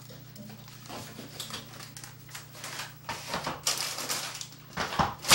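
Groceries being handled at a refrigerator and kitchen counter: plastic packaging rustling and items being set down, with a sharp knock near the end, over a low steady hum.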